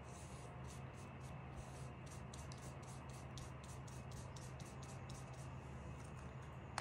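Soft, quick swishes of a paintbrush working over watercolour paper, about four a second, that stop about five and a half seconds in, over a low steady hum. A sharp click comes at the very end.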